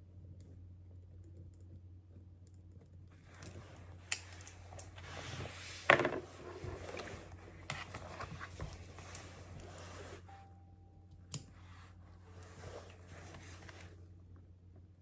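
Small objects being handled at close range: rustling with scattered sharp clicks, loudest just before six seconds in and again briefly around eleven seconds, over a steady low hum.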